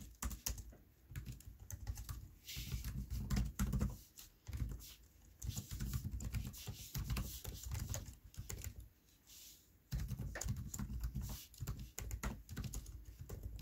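Typing on a computer keyboard: runs of quick keystrokes with brief pauses between them, the longest pause a little past the middle.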